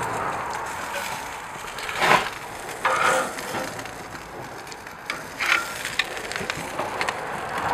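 Salmon steaks sizzling on a hot gas grill's grate, with a few short clacks and scrapes of metal tongs about two, three and five and a half seconds in as the pieces are laid down.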